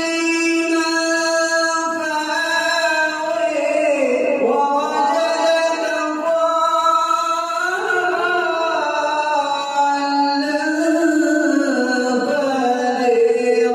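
A man reciting the Quran in melodic tajweed style, long held notes that glide slowly up and down in pitch.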